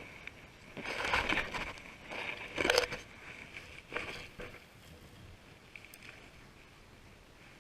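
Water splashing and sloshing around a fishing boat: a few loud splashes in the first half, the loudest about two and a half seconds in, over a faint steady high hum.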